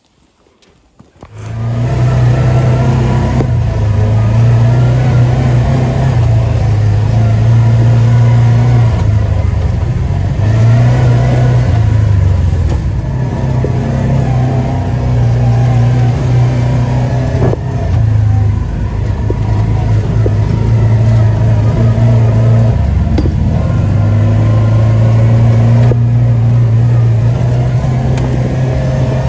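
Side-by-side off-road vehicle's engine running under way, heard loud from inside the open cab. It starts about a second and a half in, and the engine note drops and picks up again several times as the throttle changes.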